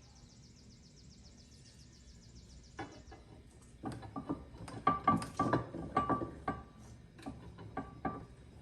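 A fast, high ticking trill for the first three seconds. Then a run of sharp metal clanks and knocks, some with a short ring, as a steel mower blade is handled and clamped tight in a bench vise.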